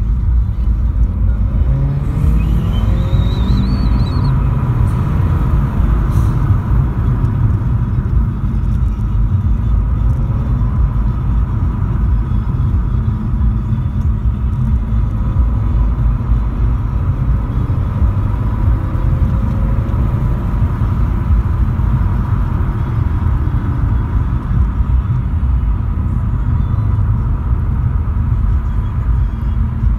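Steady low road and engine rumble of a Volkswagen Polo driving at speed, heard from inside the car's cabin.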